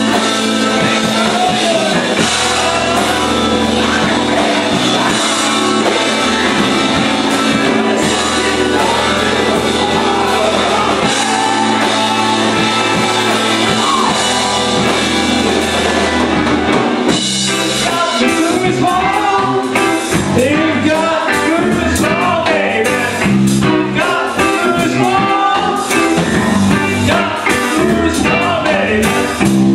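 A rock song played by a band with a singer's voice over it. About halfway through the arrangement changes: the steady low bass breaks up and the beat becomes busier.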